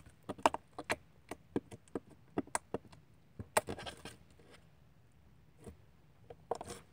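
Glittery Halloween slime mixed with green slime being pressed and poked by hand on a table, giving a quick run of small sharp clicks and pops, thickest in the first four seconds, with a few more near the end.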